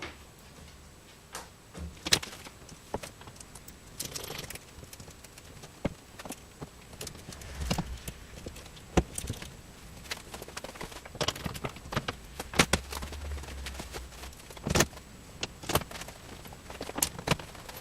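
Small screws and hand tools being handled and fitted into a car's windscreen frame fixings: scattered metallic clicks and taps at uneven intervals, a few sharper knocks among them.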